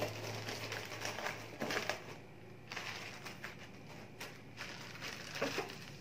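Plastic food bags rustling and crinkling as they are handled and packed into a plastic container, an irregular run of soft crackles and light knocks. Background music fades out within the first second.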